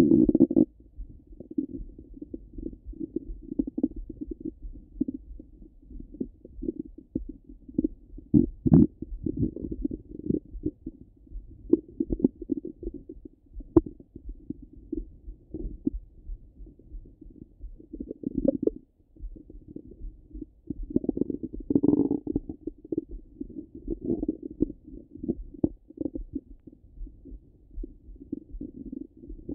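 Stomach gurgling heard through a stethoscope on the belly: irregular low rumbles and gurgles, with louder surges about nine seconds in and again a little past twenty seconds.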